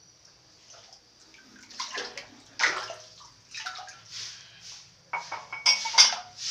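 Water splashing and sloshing in a thin layer of water on a tiled pool floor, in irregular bursts that are loudest about two to three seconds in and again near the end.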